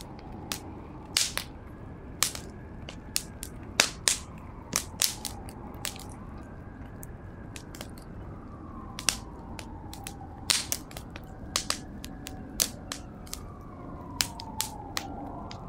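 Fire crackling as a painting burns: irregular sharp pops and snaps, several a second at times, over a steady low rush of flame. A faint tone slowly rises and falls in the background.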